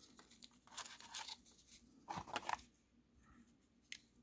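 Faint scraping and handling noises of calipers being slid and set against a wristwatch to measure its thickness, two short scrapes followed by a small click near the end.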